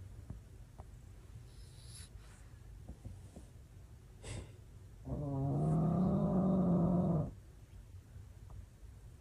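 A pet animal gives one long, drawn-out vocal call of about two seconds, rising a little as it starts, about five seconds in. A short sharp click comes just before it.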